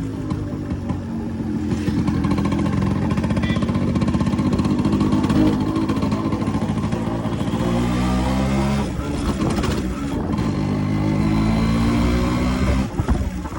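Yamaha RX 100's two-stroke single-cylinder engine running on the move, its pitch climbing and dropping back several times in the second half as the bike accelerates through the gears.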